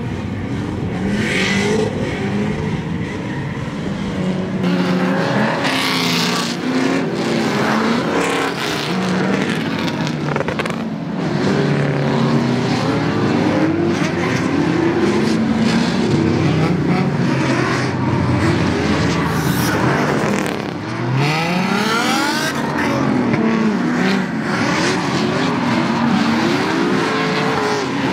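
A pack of drift cars running in a long tandem train: many engines revving up and down over one another, with tyres squealing and scrubbing.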